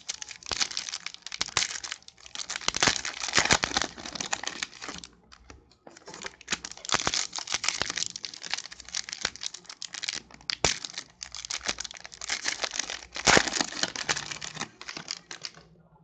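Crinkly plastic-foil wrapper of a trading card pack, crackling and tearing as it is ripped open and handled, in two long stretches with a short pause about five seconds in.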